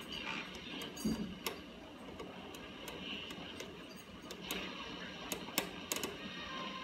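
Vintage Westinghouse H-327T60 AM radio between stations: static hiss with scattered sharp clicks and crackles.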